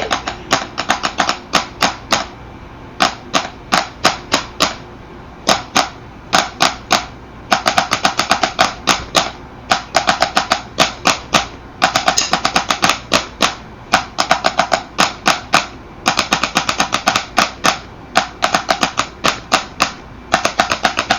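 Rapid sharp clacks in irregular runs of one to two seconds with short gaps between, about six to ten clacks a second within a run.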